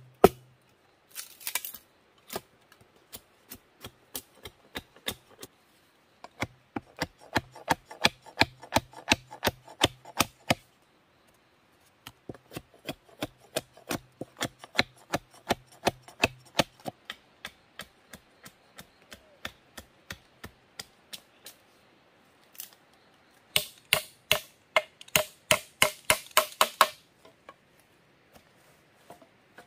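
Machete chopping at the end of split bamboo stakes: quick runs of sharp knocks, several a second, in four bursts with short pauses between, the last burst the sharpest.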